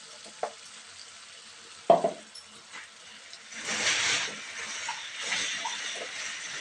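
A wooden spatula stirring and scraping cluster beans and ground peanut powder around a kadai, in two spells in the second half. A single sharp clack about two seconds in is the loudest sound.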